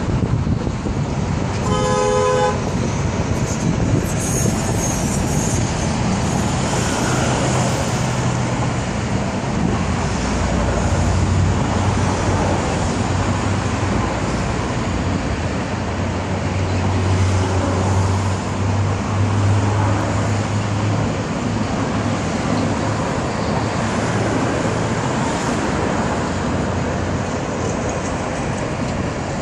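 Steady road traffic noise with a vehicle horn sounding briefly about two seconds in, and a low engine drone from heavier traffic through the middle.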